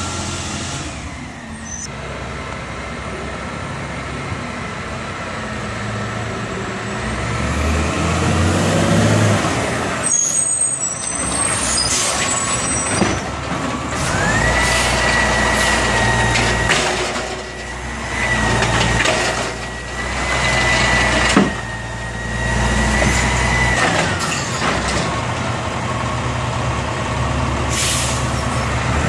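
Automated side-loader garbage truck working at the curb: its diesel engine runs under a steady high whine that rises in, holds for about ten seconds, then drops away, typical of the hydraulic pump driving the arm and packer. Sharp air-brake hisses come several times.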